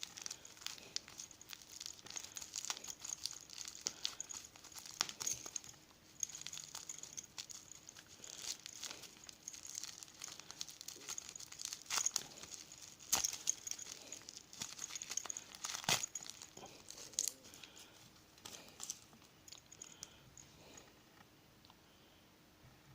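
Plastic packaging crinkling and rustling as it is handled, with many scattered sharp clicks, fading out near the end.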